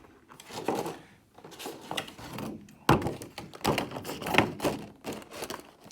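Cardboard board game box and components being handled: rustling and knocking, with one sharp thunk about three seconds in.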